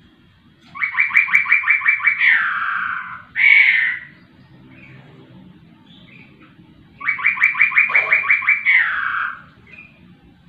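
A caged poksay rowo singing: twice, a fast run of about ten repeated notes that ends in a longer downward-sliding note, with a short loud call after the first phrase.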